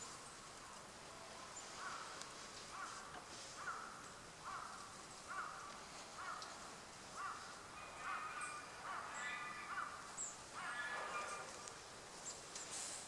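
Wild birds calling: a short note repeated about once a second, then several louder, fuller calls a little after the middle, with a few faint, thin, high calls scattered throughout.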